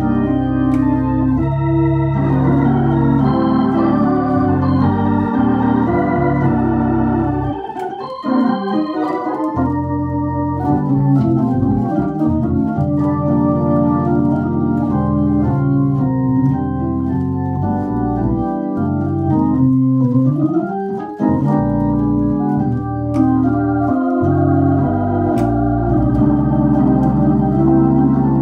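Viscount Legend Live drawbar organ played through a Tornado T115 valve rotary speaker: full chords over a moving bass line. The music drops back briefly about eight seconds in, and there is a rising upward sweep about two-thirds of the way through.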